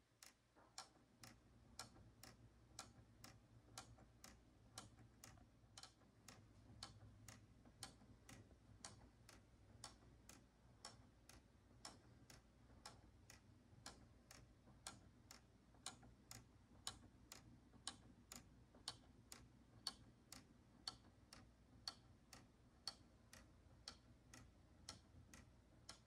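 Wooden Magica gear clock ticking without its damping pads: a quiet, even wooden tick-tock, about two clicks a second, alternating stronger and weaker.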